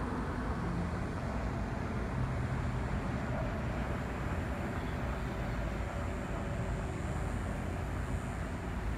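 Steady rumble of distant road traffic heard outdoors at night, a low, even wash of noise without distinct events.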